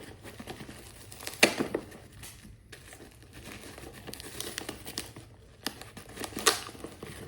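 Mail packaging crinkling and tearing as it is pulled open by hand, with sharp crackles about a second and a half in and again near the end.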